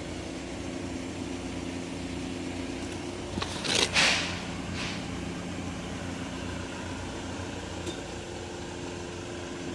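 A steady machine hum with an even, low pitch, broken about three and a half seconds in by a brief burst of noise.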